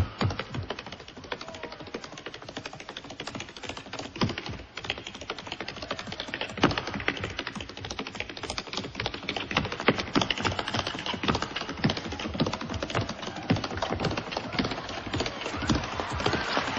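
Tap dancing: tap shoes beating out a fast, busy rhythm of clicks without music.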